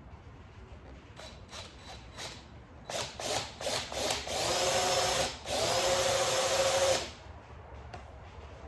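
Electric drill boring a hole in a motorcycle's luggage compartment lid: a series of short trigger bursts, then two sustained runs with a steady whine, the second stopping suddenly.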